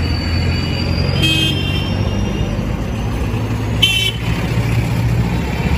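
Busy road traffic: a steady low engine hum, with two short vehicle horn toots, one just over a second in and a briefer one about four seconds in.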